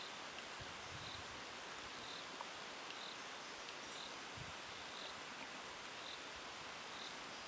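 An insect chirping: a short, high chirp repeating about once a second over a steady outdoor hiss.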